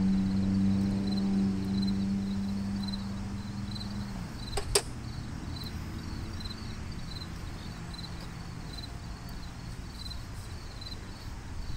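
Insects chirping in a steady, even rhythm. A low steady mechanical hum sounds over them at first, then drops slightly in pitch and dies away about four seconds in. A single sharp click comes shortly after.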